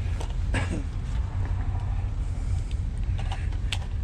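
A steady low rumble, with a brief sound about half a second in and several light clicks and knocks near the end, as objects are handled.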